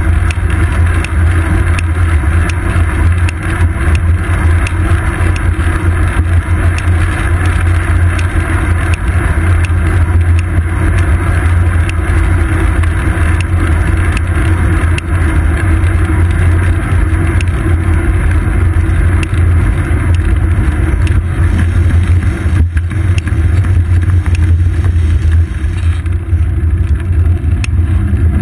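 Steady low wind rumble and road noise on the microphone of a seat-post-mounted GoPro Hero 2 on a moving bicycle, with many small ticks running through it.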